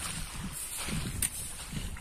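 Footsteps on grass, soft low thuds about every second, mixed with handling noise from a phone camera carried by someone walking, and one sharp click about a second in.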